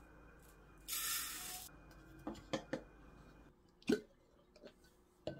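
Dry rice scooped from a glass jar and poured from a measuring cup into a rice cooker's inner pot: a hiss of grains lasting under a second, then a few light taps of the cup. Later come two sharper clicks of a glass storage bowl being handled.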